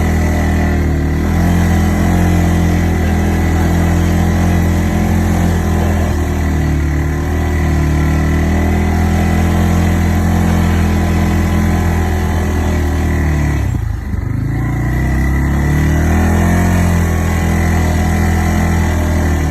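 ATV engine running steadily while riding, with the pitch shifting slightly. About fourteen seconds in it briefly drops off as the throttle eases, then rises again as it picks back up.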